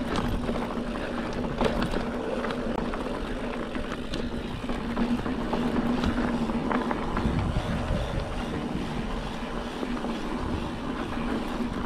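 Mountain bike rolling down a rough dirt-and-gravel jeep trail: tyres crunching over loose stones and dry leaves, with frequent small rattles and knocks from the bike, wind on the microphone, and a steady hum.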